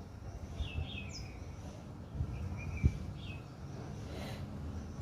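Faint bird chirps: short, high, falling notes several times over a low steady background hum, with a single sharp click near the middle.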